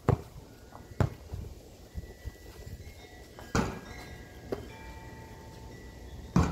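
A basketball bouncing on the ground with a few separate thuds about a second apart, then a louder impact near the end as the shot ball strikes the hoop.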